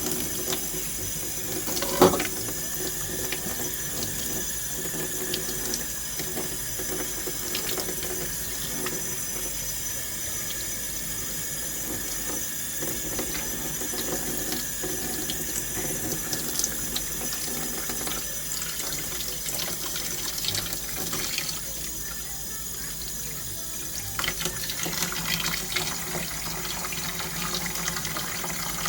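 Tap water running into a sink, with one sharp knock about two seconds in.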